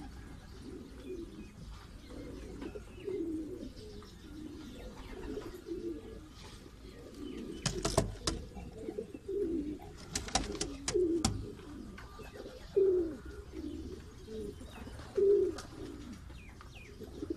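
Domestic pigeon cooing over and over, low repeated coos about a second apart. A few sharp clicks come about eight seconds in and again around ten to eleven seconds in.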